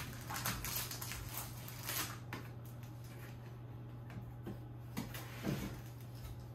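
Sheets of paper rustling as they are slid into a two-tier desk letter tray, then a few light knocks as the tray is shifted on the desk, over a steady low hum.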